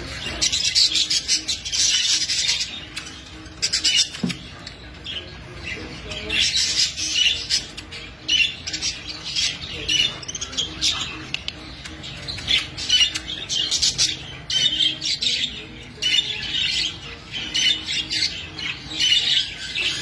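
A flock of budgerigars chattering: many birds warbling, chirping and squawking at once in busy, irregular bursts.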